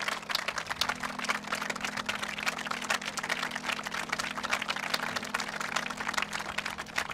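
An audience applauding: many hand claps close together, over a steady low hum.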